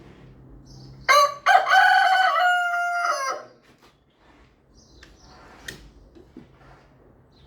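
Rooster crowing once, about a second in: a short opening note, then a long call of about two seconds that drops in pitch partway through and holds before cutting off.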